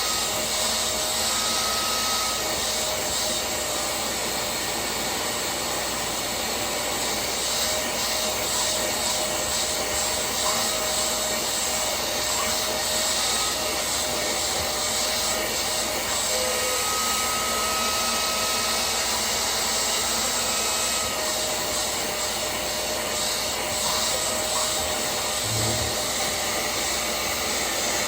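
Hoover CleanSlate portable spot cleaner's motor running steadily, a loud rush of air with a faint thin whine at times.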